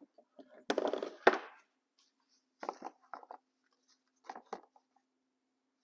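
Knocks and clatter of pieces of plywood and clamps being handled and set down on a workbench: a cluster of knocks about a second in, then a few scattered lighter taps.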